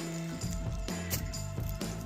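Background music with held bass notes and regular drum and cymbal hits.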